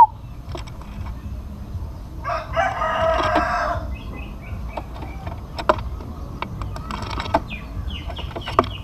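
A rooster crowing about two seconds in, then a fainter crow around seven seconds, with small birds chirping briefly and a few sharp clicks between.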